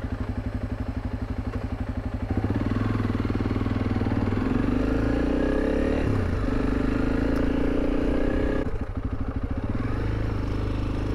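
Honda CRF300 Rally's single-cylinder engine running as the motorcycle rides. The engine grows louder about two seconds in, its pitch dips briefly around six seconds, and it eases off near the end.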